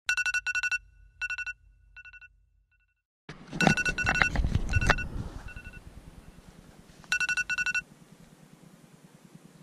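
Smartphone alarm beeping in quick groups of four, the first group trailing off in fading repeats. About three seconds in, rustling and handling noise breaks in over the beeps, and one more group of four beeps comes near the end.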